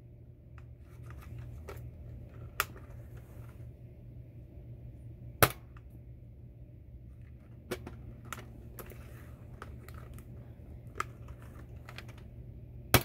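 Fortnite Nerf dart blaster firing: sharp pops a few seconds apart, the loudest about five seconds in and right at the end, with lighter plastic clicks in between.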